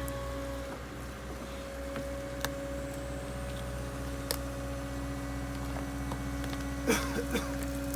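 Steady hum of an idling engine, a constant drone with a low rumble underneath, with a few faint clicks and knocks about seven seconds in.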